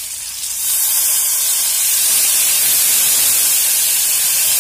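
Cachaça poured into a hot pan of browned butter and seared short rib, flashing into steam. A steady frying sizzle turns into a much louder, even hiss about half a second in, and holds there.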